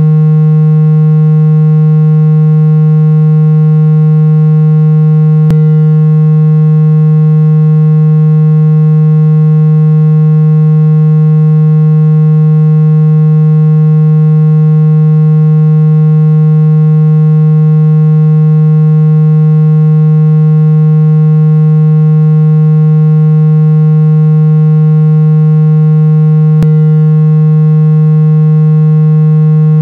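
Loud, steady, low electronic hum held at one fixed pitch with overtones above it: a water-eject tone, played through a phone's speaker to shake water out of it. A faint click comes about five seconds in and again near the end.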